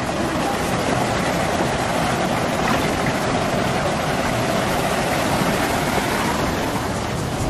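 Shallow mountain stream running over rocks close by: a steady rushing of water.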